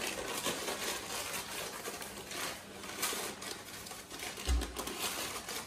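Sugar poured from a bag into a glass, a patter of grains with rustling of the bag. A single low bump about four and a half seconds in.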